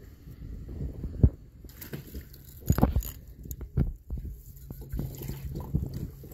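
Dull knocks and bumps over low rumbling handling noise, the loudest knock about a second in; a low steady hum comes in about four seconds in.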